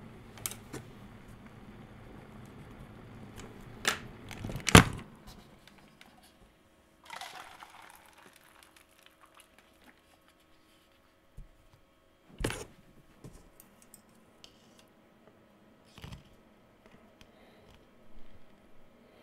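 Tabletop handling noises from an electric kettle, plastic cups and alligator-clip leads. A low, even rumbling hiss fades after two loud clacks about four and five seconds in. A short hiss comes near eight seconds, then single knocks and clicks at intervals.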